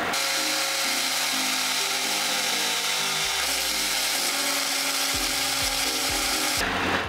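Kenwood jug blender motor running steadily as it purées thick potato and leek soup, stopping near the end.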